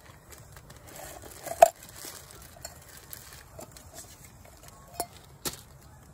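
Wood campfire crackling, with a few sharp clinks of camp dishes, the loudest about one and a half seconds in.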